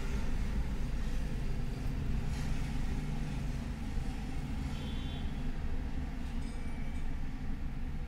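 Car engine idling, a steady low rumble heard from inside the cabin.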